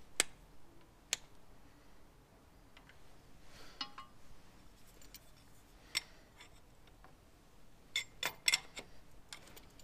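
Steel spanners clicking and clinking on a nut as a battery isolator switch is tightened onto its bracket by hand: scattered sharp clicks, a short metallic ring about four seconds in, and a quick run of clicks near the end.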